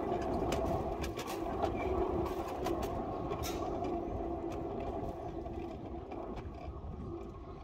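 7¼-inch gauge electric miniature locomotive running along its track, a steady motor hum with scattered clicks from the wheels on the rails, getting gradually quieter.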